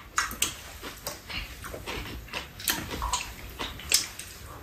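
People eating at a table: wet chewing and slurping, with scattered light clicks of chopsticks and spoons against bowls.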